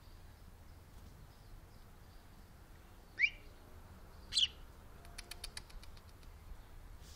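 House sparrow fledgling chirping twice: two short, loud chirps about a second apart, followed by a quick run of faint clicks.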